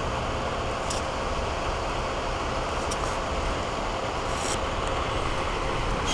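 Flatbed truck hauling tower-crane mast sections pulling away, its engine a steady low rumble.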